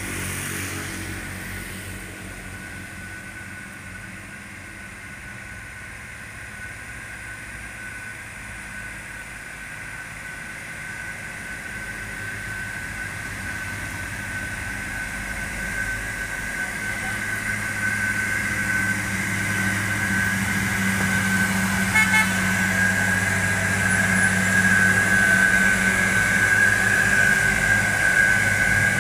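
Diesel engine of a heavily loaded Hino 500 box truck labouring uphill, a steady low hum with a steady high whine over it, growing louder as the truck approaches and passes close by.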